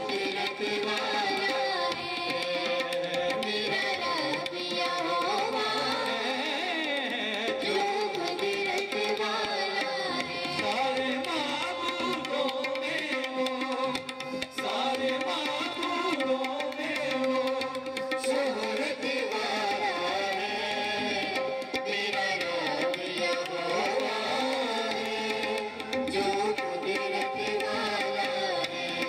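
Music with tabla drumming and singing over a steady held note.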